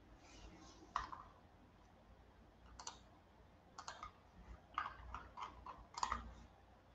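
Faint clicks from a computer being operated: a single click about a second in, another near three seconds, then a quicker irregular run of about seven clicks in the second half.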